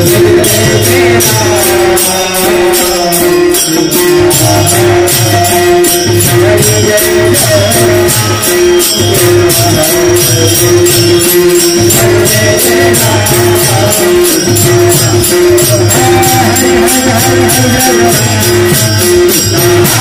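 Devotional kirtan music: voices chanting over jingling hand cymbals keeping a steady fast beat, with a drum pulse and a held note underneath.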